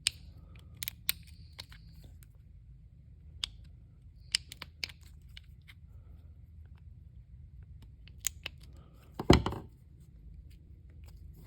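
Scattered light clicks and scrapes of the plastic pintle cap being worked off a fuel injector, with one louder snap a little past nine seconds in.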